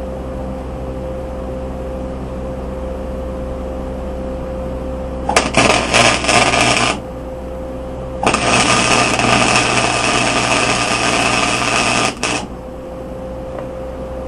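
Stick-welding arc from a 6011 rod on a Hobart Stickmate welder, crackling loudly in two spells, a short one of under two seconds and then a longer one of about four seconds, as tack welds are struck on a bush hog wheel hub. A steady electrical hum from the welder runs underneath.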